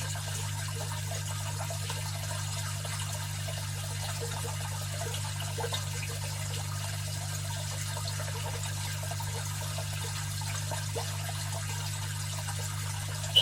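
Aquarium filter running: water trickling and splashing steadily over a low, even hum from the filter's pump. A short sharp high ping sounds right at the end.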